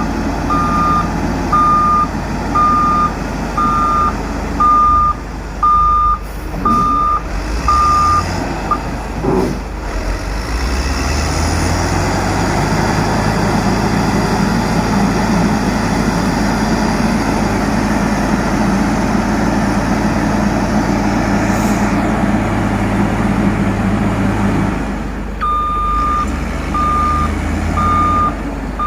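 A heavy diesel road-construction machine reversing, its back-up alarm beeping about once a second over the engine. About nine seconds in the beeping stops and the engine revs up and runs steadily under load, then drops back near the end as the reversing beeps start again.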